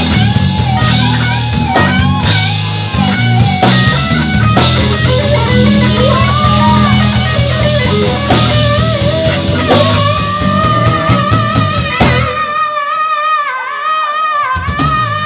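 Live band playing: electric guitar over a drum kit, keyboard and a heavy low end. About twelve seconds in, the drums and low notes drop out, leaving a high held note that wavers.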